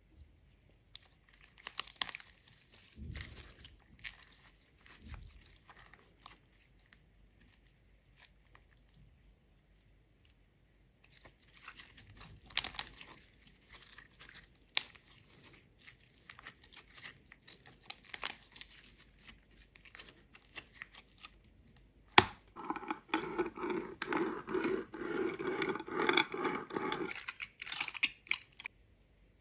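Clear glitter slime squeezed and stretched by hand, giving sticky crackles and pops in scattered runs, with a quiet pause in between. About three-quarters of the way through, a metal pizza cutter is rolled over the flattened slime, a steadier rolling sound that lasts several seconds.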